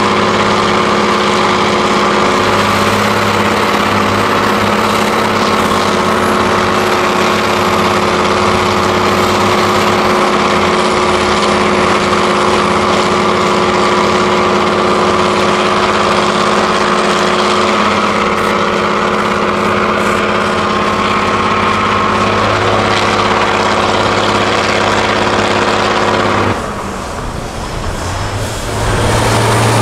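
Heavy off-road trial trucks' diesel engines running steadily under load as the nearest truck crawls through mud. Near the end the engine sound drops away for about two seconds, then comes back.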